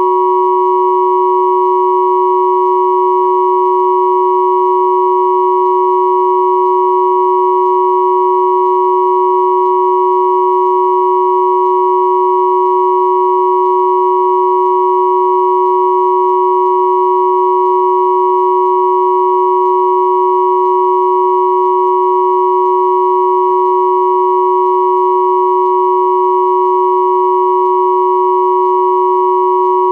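Synthesized pure tones at 369, 963 and 1111 Hz sounding together as one steady, unchanging hum, a 'healing frequency' track.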